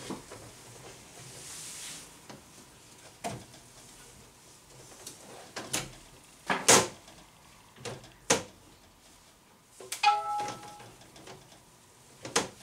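Reptile enclosure being opened and handled: about half a dozen sharp knocks and clatters of its lid or doors, the loudest about seven seconds in, with a brief squeak around ten seconds.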